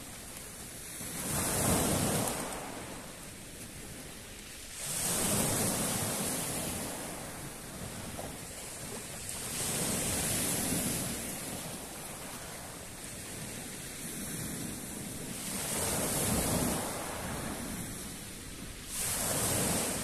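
Small sea waves breaking on a pebble beach, swelling and fading five times, about every three to five seconds.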